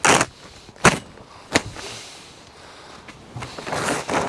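Plastic polytunnel cover being pulled and dragged off its metal hoop frame, rustling and crackling. A loud rush of rustling comes at the start, two sharp snaps follow about one and one-and-a-half seconds in, and more rustling comes near the end.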